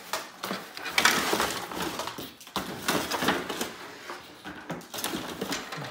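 Small plastic toys being handled on a wooden counter: a run of crinkling and little clicks and knocks, loudest about a second in.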